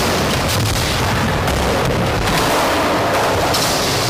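Skateboard wheels rolling over skatepark ramps: a loud, steady rolling noise with a few knocks.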